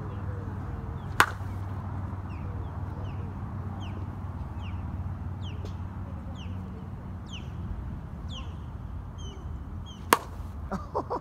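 A softball bat striking a pitched softball in batting practice: a sharp hit about a second in and another near the end, the second followed by a quick run of lighter knocks. Between the hits a bird chirps over and over in short falling notes, over a steady low background rumble.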